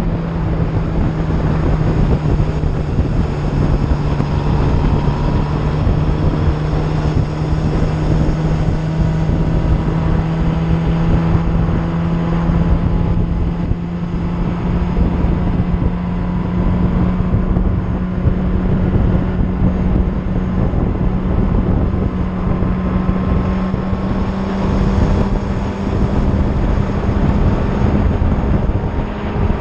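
Motorcycle engine running at a steady cruising speed, its note rising slowly, under heavy wind noise on the microphone.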